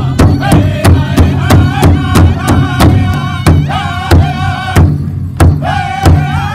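Powwow drum group singing a chicken dance song in high voices over a large hide drum struck in unison, about three beats a second. A little past four seconds in the singing breaks off for about a second while the drum gives a few spaced strokes, then the voices come back in.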